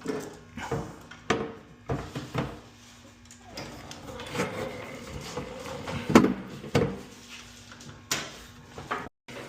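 Handling noise from parts being fitted into a fire alarm panel's back box: a string of irregular knocks, clicks and scrapes, the loudest knock about six seconds in.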